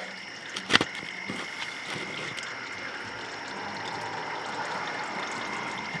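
Engine oil draining from a 2000 Ford Mustang V6's sump into a drain pan in a steady stream, with a single knock under a second in.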